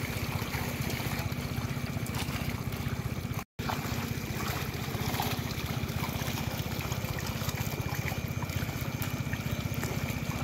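A small engine running steadily with an even, fast pulse, over trickling water. It cuts out for a split second about three and a half seconds in.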